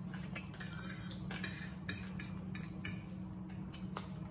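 Table knife and fork scraping and clicking against a plate as a steak is sawed into pieces, many short strokes in a row over a steady low hum.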